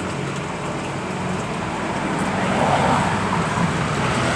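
Water pouring steadily from a coin-operated water vending machine's nozzle into a container, growing louder about two and a half seconds in.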